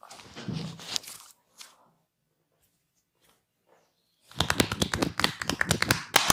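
A barber's hands slapping and chopping on bare skin in a percussive massage, a fast even run of sharp slaps about nine a second that starts about four seconds in. A short rubbing rustle comes just at the start.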